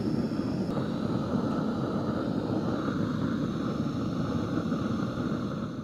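Handheld propane torch burning steadily, its flame played against the base of a steel drum with a fire going inside it; the steady noise fades out near the end.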